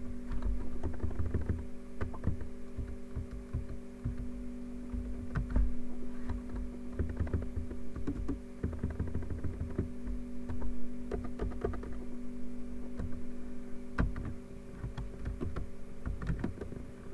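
Computer keyboard keystrokes, irregular runs of typing and single key presses, over a steady electrical hum.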